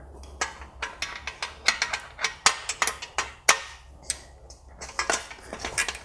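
Irregular metal clinks and clicks of hand tools: an O2 sensor socket and ratchet being picked up and fitted onto the oxygen sensor on a steel exhaust downpipe.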